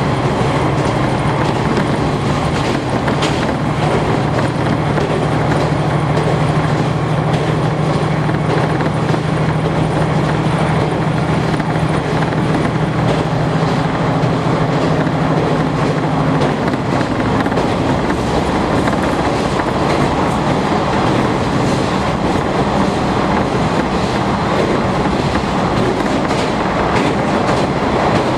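Cabin sound of a KiHa 40 series diesel railcar under way: a steady diesel engine drone over the rumble of the wheels, with the clicks of rail joints. About two-thirds of the way in, the engine's steady note drops away and only the running noise of the wheels remains.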